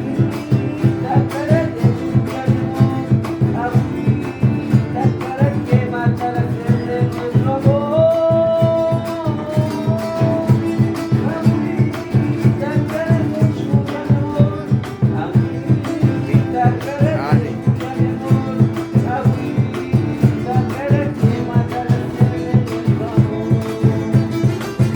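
Music: a guitar played in a steady, even beat, with a voice singing over it.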